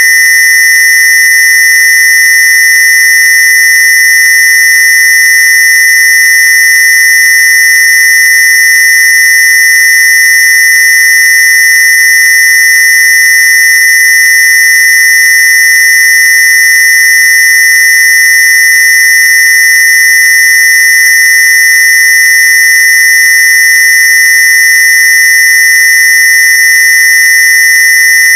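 Continuous electronic square-wave tone, high-pitched, loud and unchanging, a Rife-frequency tone.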